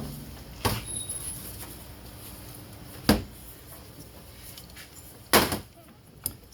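A few separate sharp knocks and clunks of metal tools and parts being handled on a workbench: one near the start, one around the middle and a short cluster near the end.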